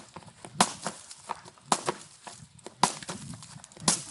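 A skipping rope slapping the ground with a sharp crack about once a second, four times, with fainter ticks between the slaps.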